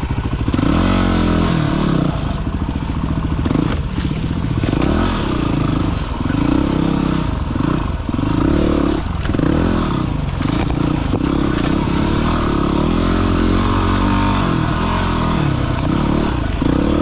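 Single-cylinder enduro dirt bike engine revving up and down over and over as it is ridden, with some clatter from the bike.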